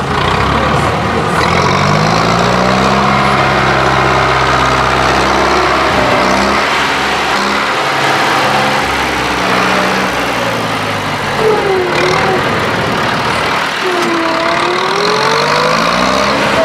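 Zetor 50 Super tractor's diesel engine working under load, its revs rising and falling several times as the tractor pulls out of a mud trench.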